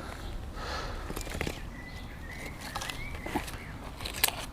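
A few light clicks and knocks from a magnet-fishing magnet and the metal on it being handled, over a low rumble, with a faint thin high whistling tone in the middle.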